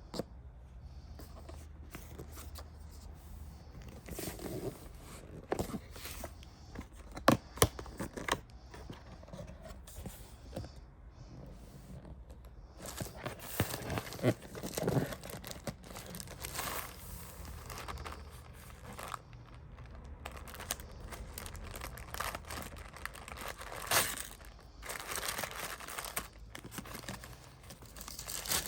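Packaging being torn open and crinkled while a keyboard is unboxed. Stretches of rustling and tearing are broken by a few sharp clicks and knocks, with the rustling heavier in the second half.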